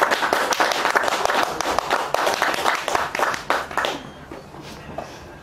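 A small group of people clapping, dense and lively at first, then dying away about four seconds in.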